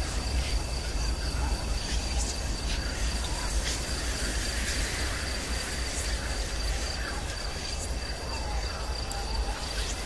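Haunted-house sound-effect ambience: a steady high insect-like trill, like crickets, over a constant low rumble and hiss, with scattered faint clicks and a few faint sliding tones.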